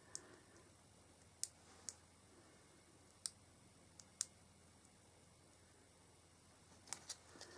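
Near silence, broken by a handful of faint, sharp clicks and taps from hands handling card stock and foam adhesive strips on a craft table.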